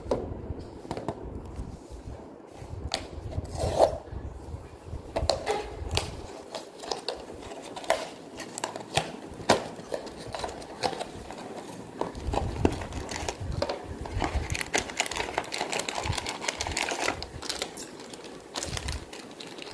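Hands opening a cardboard blind box, with sharp cracks and scrapes as the flaps are torn open. Near the end, a foil bag crinkles and rustles as it is handled and crumpled.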